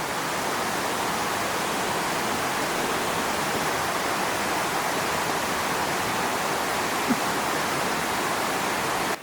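Running water rushing steadily, like a stream or small falls.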